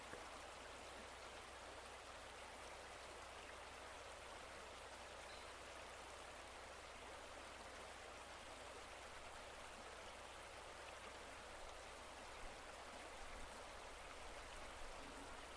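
Near silence: a faint, steady hiss with a low hum underneath.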